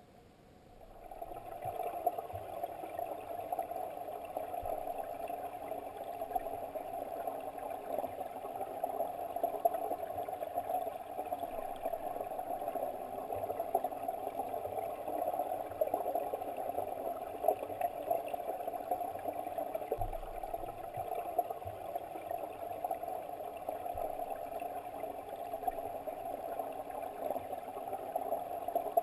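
Steady muffled rush and gurgle of stream water heard through an underwater camera, rising in over the first two seconds.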